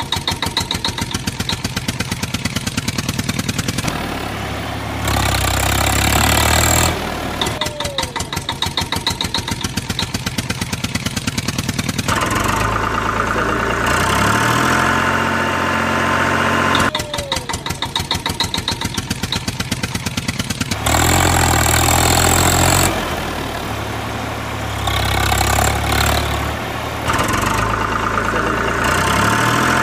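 Looped engine sound track: a rapid, even engine putter alternating with stretches of steadier, louder running, the same sequence coming round again partway through.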